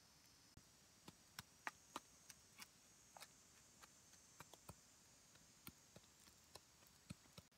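Wooden pestle pounding ingredients in a small bowl: irregular sharp knocks, two or three a second, over a faint steady high hiss.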